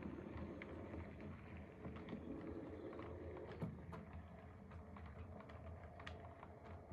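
OO gauge model train running along the track, a steady low hum with scattered light clicks, fading as it draws away.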